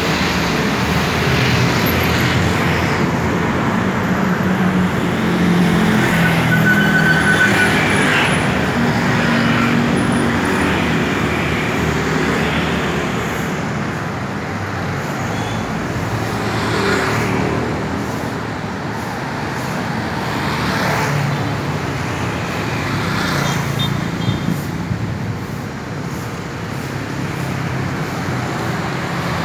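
Steady road traffic: cars and motorbikes running along a busy street, with the sound swelling and fading several times as single vehicles pass close by.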